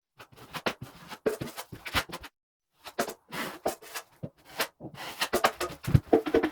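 Metal drywall taping knife scraping and clacking against a mud pan and the wall while joint compound is spread, in quick irregular strokes with short breaks.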